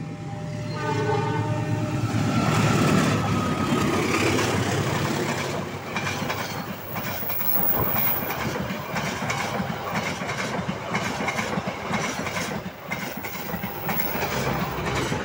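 CC206 diesel-electric locomotive sounding its horn for about two seconds as it approaches, then the Argo Dwipangga's passenger coaches rushing past at speed, their wheels clattering over the rail joints.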